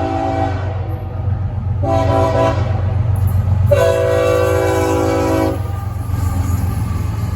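Lead diesel locomotive's air horn sounding three blasts, each about a second or more, the third the longest and loudest, over the steady low rumble of the passing locomotive.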